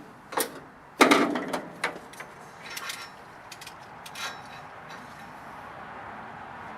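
Hand-work clicks and knocks from handling tools and a power steering hose. The loudest is a sharp clunk about a second in, followed by smaller clicks and scrapes for a few seconds, then a faint steady hiss.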